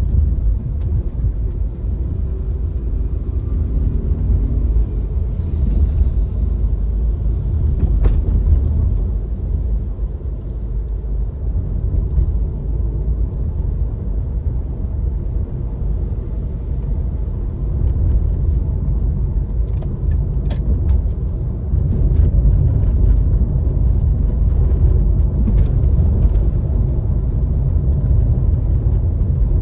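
Car driving on city streets: a steady low rumble of engine and tyres, with a few brief clicks.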